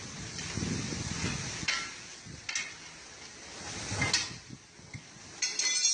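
Truck tyre being pried off its steel wheel rim with a long tyre bar: rubbing and scraping, a few sharp knocks, and metallic clinks near the end.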